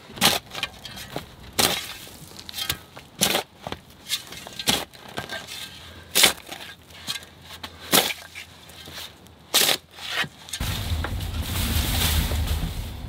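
Steel shovel scraping and chopping into red clay soil, with separate sharp strokes a second or so apart. About ten and a half seconds in, these give way to a steady low rumble.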